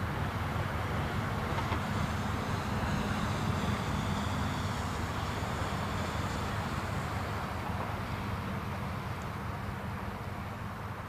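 Low, steady rumble of a passing vehicle with a faint high whine. It swells to a peak a few seconds in, then slowly fades away.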